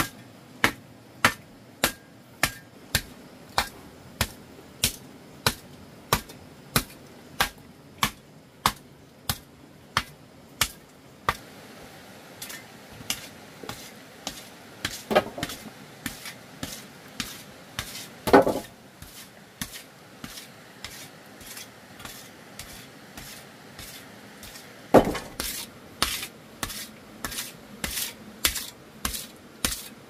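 A hand tool striking again and again, about one and a half sharp blows a second. In the middle the blows turn irregular and lighter, with three heavier, deeper knocks, and the steady rhythm resumes near the end.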